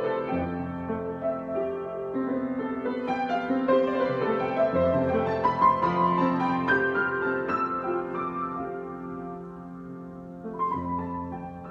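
Solo piano improvisation: slow, sustained chords under a melody line. It grows gradually softer through the second half, with a fresh chord struck near the end.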